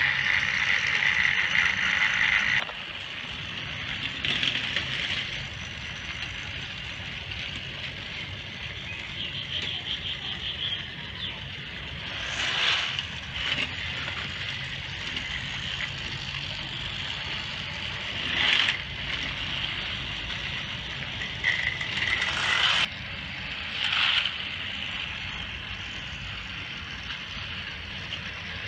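Motorized Thomas & Friends toy trains running on plastic track: a steady whir of small electric motors with the rattle of wheels on the track. It is louder at first and drops about two and a half seconds in, and there are several short, louder clatters in the second half.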